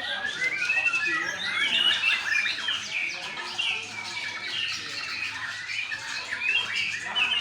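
White-rumped shamas (murai batu) singing in competition, several birds at once: a dense, continuous mix of overlapping whistled and rapidly changing song phrases.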